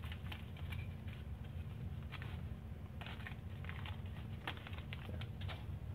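Clear plastic kit bags crinkling and rustling in short, scattered crackles as hands handle them, over a steady low hum.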